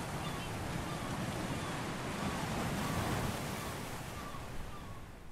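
Ocean surf washing onto a beach: a steady, even rush of waves that eases off over the last second.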